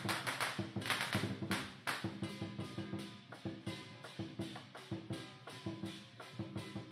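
Lion dance percussion: a drum, cymbals and gong beating a fast, even rhythm of about three or four strokes a second. The cymbal crashes are loud for the first two seconds, then the playing goes softer.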